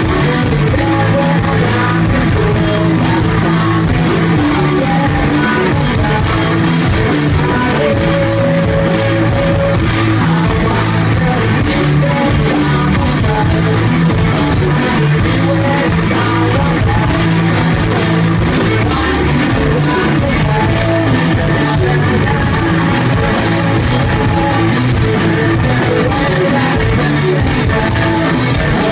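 Rock band playing live and loud, with guitar and drum kit.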